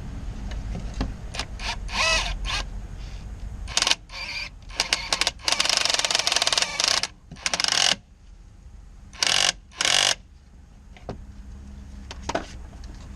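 Cordless impact wrench hammering on the shock mount bolts in several short trigger pulls, with one longer run of about a second and a half in the middle.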